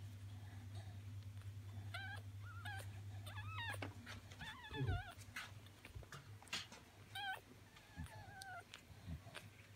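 Newborn cocker spaniel puppies squeaking and whimpering while they nurse and push for teats. The calls are thin and wavering, about half a dozen of them, starting about two seconds in.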